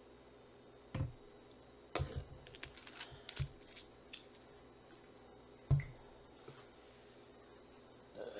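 Eating and handling of food and tableware: a scattering of short clicks and soft knocks, busiest between about two and three and a half seconds in, with a louder knock near six seconds.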